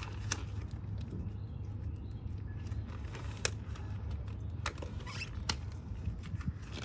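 Scattered light clicks and rustles of hands handling things, over a steady low background rumble.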